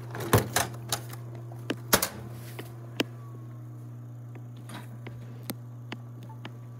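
Knocks and clicks of a multifunction printer's scanner lid and glass being handled, the loudest about half a second and two seconds in, then a few fainter taps, over a steady low hum.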